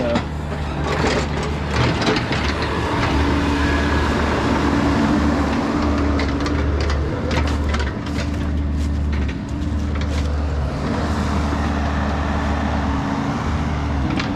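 Bobcat mini excavator's diesel engine running steadily as the machine works and tracks, with scattered knocks and clanks over the engine hum.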